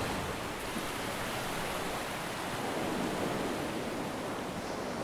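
Surf washing onto a sandy beach: a steady, even hiss of small breaking waves.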